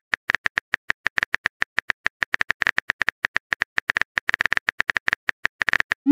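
Phone keyboard typing clicks from a texting app: a rapid, even run of short taps, about nine a second, as a message is typed. Right at the end comes a rising whoosh as the message is sent.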